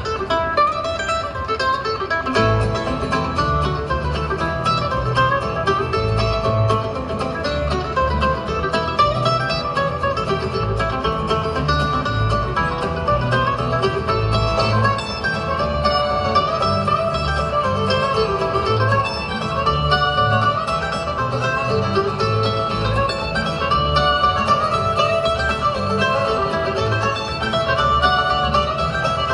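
Live bluegrass band playing: banjo, acoustic guitars and mandolin picking over an upright bass, with a steady plucked bass line underneath.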